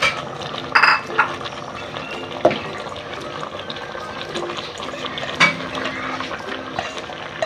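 Chopped green papaya pushed by hand from a metal bowl into a pot of chicken cooking in broth, with the pieces clattering in and a few sharp knocks of the bowl against the pot. The pot bubbles steadily underneath.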